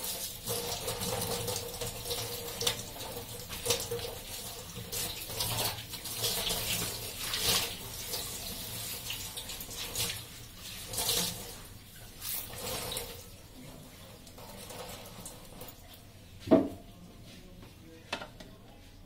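Tap water running and splashing into a stainless-steel sink while a cloth is rubbed and rinsed under it. The water sound dies down past the middle. A short, loud squeak falling in pitch comes near the end.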